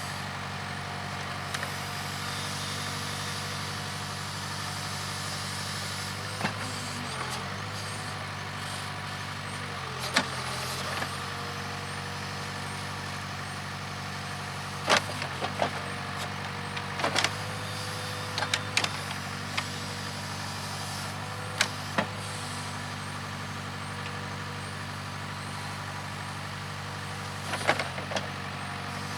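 Case 580K backhoe's diesel engine running steadily, its pitch sagging briefly twice as it takes load, with sharp metal clanks scattered through, loudest about halfway and again near the end.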